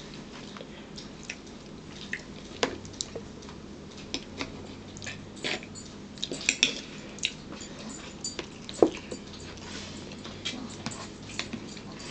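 Scattered light clinks and taps of a metal spoon against a plastic bowl and a drinking glass set on a table, with a sharper knock about nine seconds in.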